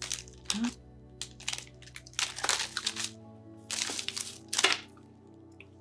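Plastic candy wrapper and a clear plastic bag crinkling in about six short bursts as they are handled, over soft background music.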